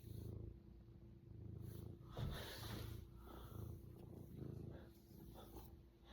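Domestic cat purring close to the microphone, a low rumble pulsing with each breath in and out. There is a brief louder noise about two seconds in.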